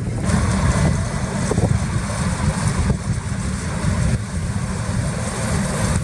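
Deutz-Fahr 6090 HTS combine harvester running steadily while cutting wheat: a deep engine rumble with a steady mechanical hiss from the machine on top.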